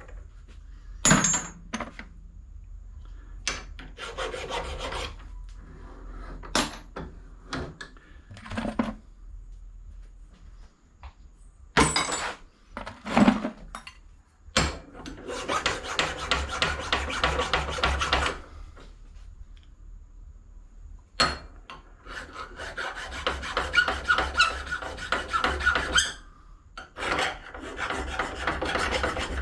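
Brass and copper scrap being scraped by hand to bare the metal and show its colour, in long runs of rasping strokes, with sharp clanks of pieces set down or tossed aside in between.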